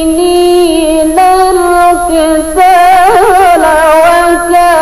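A woman reciting the Quran in the melodic, unaccompanied qiraah style, holding long sung notes that step between pitches, with a quick wavering ornament about three seconds in.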